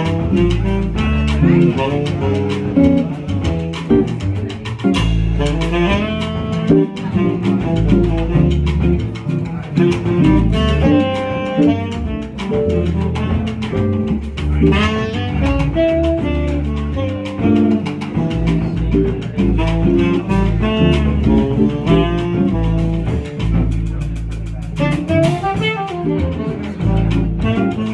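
Small jazz group playing: an archtop guitar picked by hand over a double bass line, with other instruments joining in.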